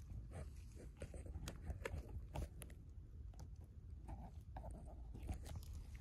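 Irregular crunching and crackling clicks close to the microphone over a low rumble: rustling of dry leaves, twigs and soil as the phone is moved about a burrow-like hole in the ground.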